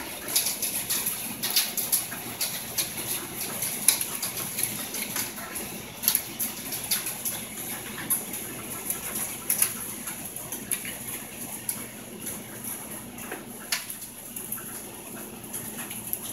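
Small ice pellets (frozen rain or small hail) pattering down on a garden, a dense run of sharp ticks that grows a little sparser near the end.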